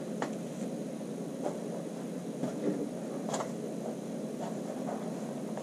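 Hands smoothing a cotton knit top flat on paper, faint fabric-and-paper handling with a few light clicks, over a steady low room hum.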